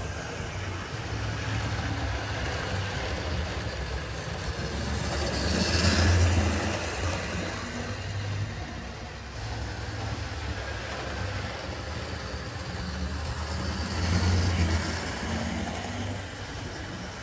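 00 gauge model trains running on the track, a steady motor-and-wheel rumble with a low hum. It swells twice as trains pass close by, about six seconds in and again near the end.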